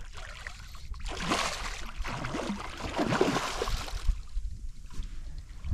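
A big hooked redfish thrashing at the surface of shallow water, splashing in two bursts, about a second in and again around three seconds in.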